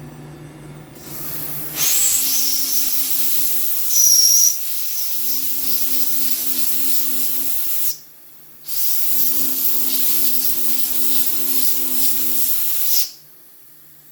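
Compressed-air blast hissing loudly onto the cutter while the CNC router's spindle hums steadily during thread milling, the air cutting off for under a second about eight seconds in and stopping about a second before the end. A brief high whistle rises out of the hiss about four seconds in.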